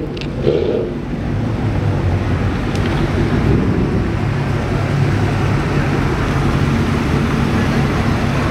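Steady car engine hum with road or traffic noise, holding an even level with no revving or sudden sounds.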